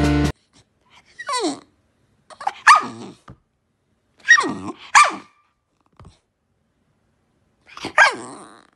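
A bull terrier making a series of short vocal calls, each sliding down in pitch: five in all, with pauses between them.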